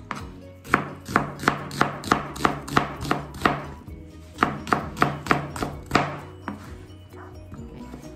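Chef's knife slicing an onion on a plastic cutting board: a quick, even run of knife strikes, about three a second, with a short pause midway, stopping about six and a half seconds in.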